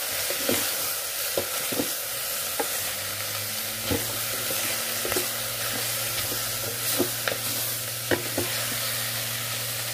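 Beef chunks, onion, garlic and ginger sizzling as they sauté in an Instant Pot's stainless steel inner pot, with a wooden spatula scraping and knocking against the pot as it stirs.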